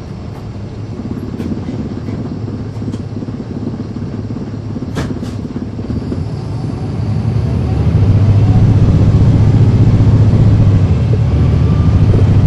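Caterpillar C13 diesel engine of a NABI 40-SFW transit bus, heard from the rear seats inside the bus, with a steady low rumble that gets clearly louder about seven seconds in and stays loud. A couple of short rattles come about five seconds in.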